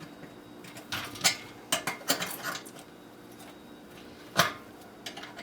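Scattered metallic clinks and knocks from a dehumidifier compressor's mounting clamps being worked loose by hand, with the loudest knock about four and a half seconds in.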